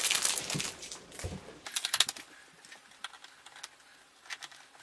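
Crinkling of packaging fading out within the first second, then scattered light plastic clicks and taps as a light switch cover plate is handled and fitted.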